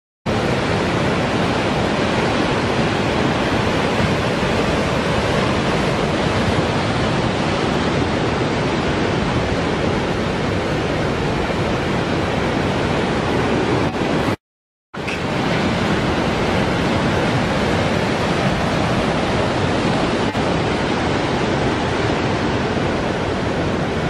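Loud, steady rush of heavy surf breaking, which drops out briefly about halfway through and then resumes.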